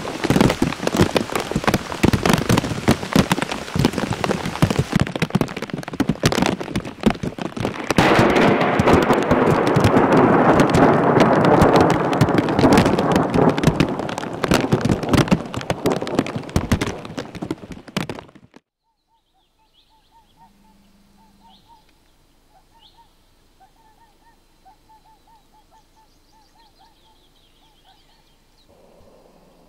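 Hailstorm: hailstones pelting the ground and trees in a dense clatter of countless small impacts over a heavy hiss of rain, heaviest in the middle. It cuts off suddenly about eighteen seconds in, leaving a faint background with small birds calling.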